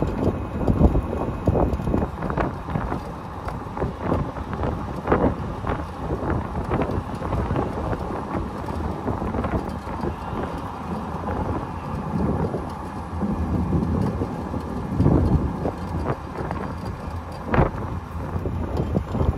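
Wind buffeting the microphone and road noise from an open-sided 2022 Moke Electric driving at about 25 mph, with frequent short knocks and bumps through the rumble.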